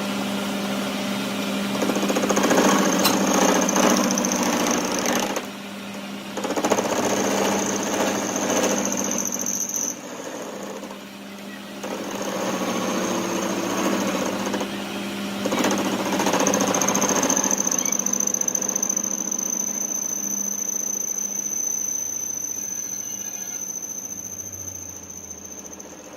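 A workshop machine tool working metal, in what is likely a crankshaft repair: a steady motor hum runs throughout, with a high-pitched squeal and several louder stretches of cutting noise that start and stop.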